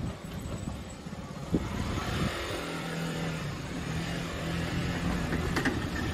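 Ambient noise while walking into a convenience store: a couple of sharp knocks about a second and a half in, then a low steady hum that breaks off and resumes, with another click near the end.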